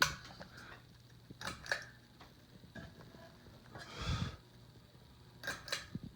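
A sharp click as the Harbor Breeze ceiling fan's switch is turned to off. It is followed by a few light clicks, a brief rustle about four seconds in, and a faint steady hum.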